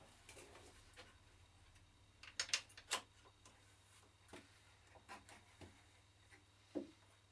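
Quiet room tone with a low steady hum and scattered light clicks and knocks, the loudest a quick cluster about two and a half seconds in.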